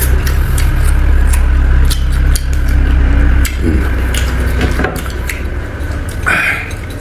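Close-miked eating: chewing and gnawing boiled lamb off the bone, with small wet clicks and smacks, over a steady low hum that drops away about five seconds in. Near the end a plate gives a short clatter as it is moved.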